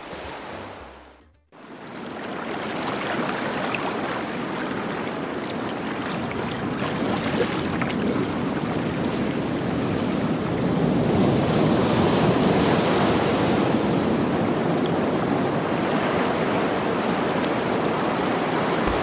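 Sea waves and surf, a steady rushing noise that fades in after a brief drop to silence about a second and a half in, and grows louder past the middle.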